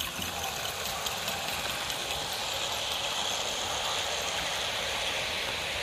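OO gauge model trains running along the track: the steady rolling and rattling of wheels on rail and the locomotive's running gear. It grows a little louder about midway as a train passes close by.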